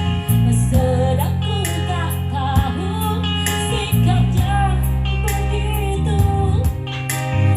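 A woman singing a song over a musical backing with a steady bass and beat.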